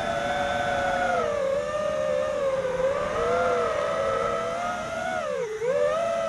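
Diatone Roma F5 FPV quadcopter's brushless motors and propellers whining under throttle, several close pitches wavering together as the pilot flies. Near the end the pitch dips briefly as the throttle is chopped, then climbs again.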